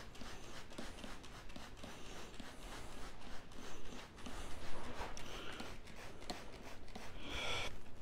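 Soft footsteps on carpet and the rustle of a handheld camera as a person walks slowly across the room, with a couple of short noisy bursts near the end.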